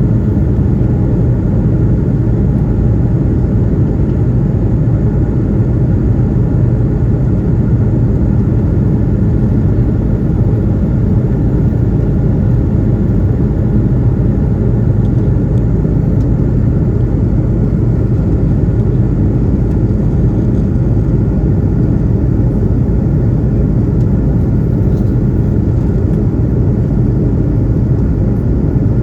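Steady, loud rumble of an Airbus A330-200's engines and airflow, heard inside the passenger cabin.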